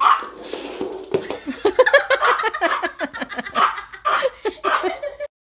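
Laughter: a quick run of short giggling bursts lasting about four seconds, cut off abruptly near the end.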